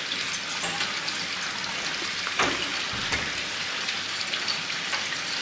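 Steady splashing hiss of a wall spout pouring water into a swimming pool, with a faint knock about two and a half seconds in.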